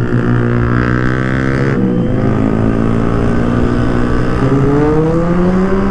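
Sport motorcycle engine accelerating under the rider, its pitch climbing, then falling sharply about two seconds in and climbing again from about four seconds in.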